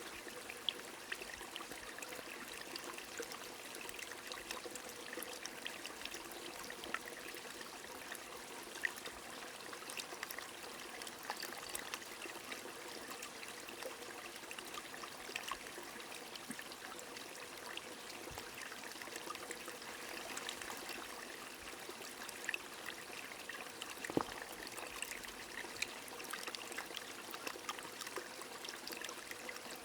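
Rain falling over a flowing stream: a steady, even wash of running water with many small drop ticks scattered through it.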